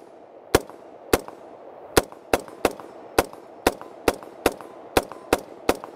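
Daewoo K2 (Max II) 5.56 mm rifle fired in a quick semi-automatic string: about a dozen sharp shots in six seconds, unevenly spaced.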